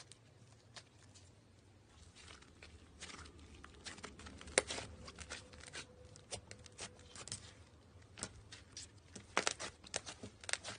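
Slime being squeezed and pulled by hand: irregular crackling pops and clicks with soft sticky tearing sounds. It is sparse at first and gets busier after about two seconds.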